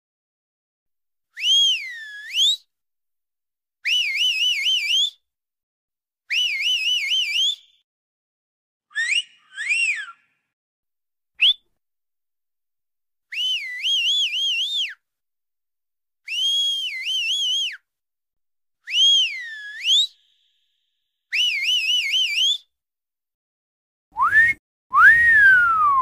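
A man doing a two-finger whistle in about ten short high-pitched phrases with silent gaps between. Most warble quickly up and down, a few swoop down and back up, and near the end come a rising whistle and a longer one that rises and then glides down.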